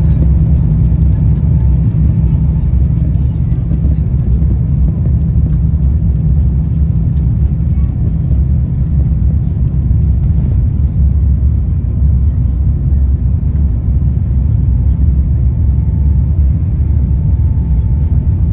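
Steady low rumble inside the cabin of an Airbus A350-900 taxiing, its Rolls-Royce Trent XWB engines running at low thrust as the aircraft rolls along the taxiway.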